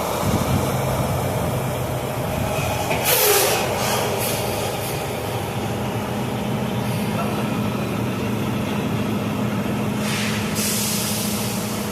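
Grain truck's diesel engine idling steadily, with two sharp hisses of released air, one about three seconds in and a longer one near the end.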